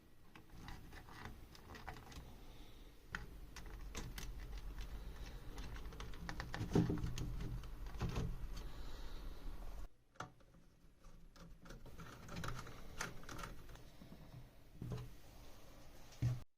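Irregular light clicks and taps of small objects being handled, over a low steady hum that cuts off abruptly about ten seconds in.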